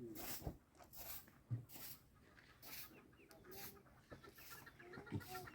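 Chickens clucking faintly, with soft regular strokes about once a second.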